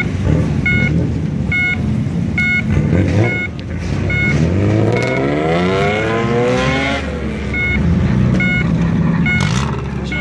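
Modified classic Japanese cars with loud exhausts idling and revving as they pull out. One engine rises in a long rev from about halfway through and falls away near the three-quarter mark. A two-note electronic beep repeats about once a second throughout.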